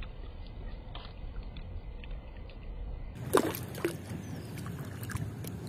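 Bait tossed by hand into still pond water, landing with two sharp plops a little over three seconds in, half a second apart; before that only a low steady rumble with faint ticks.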